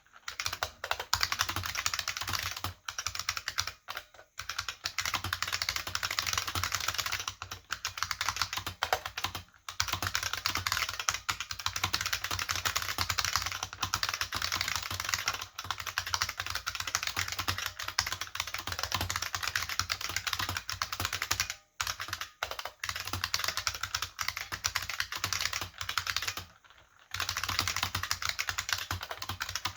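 Fast continuous typing on an IBM 5155 keyboard with capacitive buckling-spring switches and PBT keycaps, a dense run of sharp clicks broken by a few short pauses.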